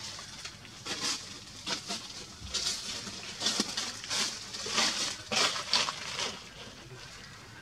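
Dry leaves and twigs rustling and crunching in short, irregular bursts, about a dozen in a few seconds, thickest in the middle.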